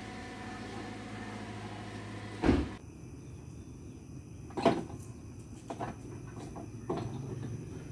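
A low steady hum that cuts off suddenly about two and a half seconds in. Then a few sharp clunks and knocks of hands handling plastic parts and caps in a car's open engine bay, the loudest just under five seconds in.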